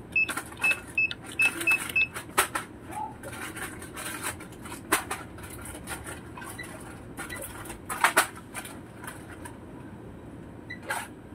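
A quick run of short electronic beeps, about seven in the first two seconds, then scattered clicks and knocks, with a cluster of louder knocks about eight seconds in.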